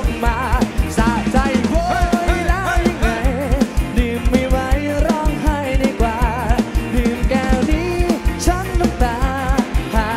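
Live rock band playing on stage: a fast, steady drum-kit beat with a wavering lead melody over it.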